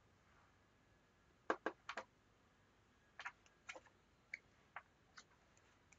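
Tarot cards being handled over a wooden table: light, sharp taps and clicks as a card is drawn from the deck and laid down, with a small cluster about one and a half seconds in and single clicks scattered after.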